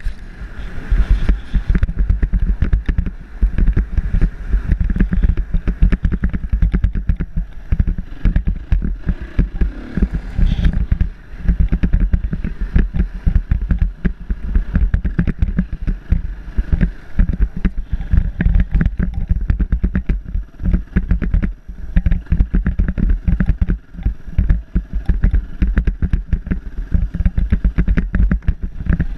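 Trail motorcycle ridden along a rough dirt track, heard from on the bike: its engine runs under a loud, choppy low rumble that rises and falls unevenly the whole time.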